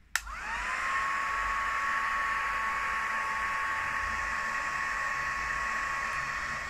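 Craft heat gun switched on with a click, its fan motor spinning up into a steady whine with rushing air as it blows hot air to dry the paint on a textured glass bottle.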